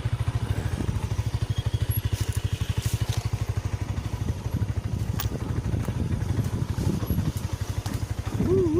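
Small motorcycle engine running steadily at low speed under load, a fast even pulsing of the exhaust heard from on the bike while it climbs a rough trail. A short wavering pitched sound comes in near the end.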